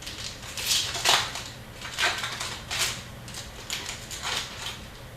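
Hockey card packs being torn open and the cards handled: a string of short crinkling and rustling sounds from wrappers and card stock.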